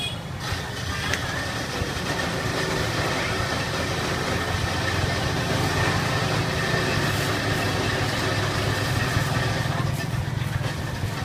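Busy street ambience: a steady hum of traffic and engines, with people talking.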